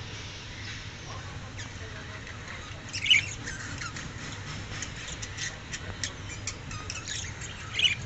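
Budgerigars chirping and squawking: faint chatter at first, then from about three seconds in a busy flurry of short high calls, with two loud squawks, one about three seconds in and one near the end.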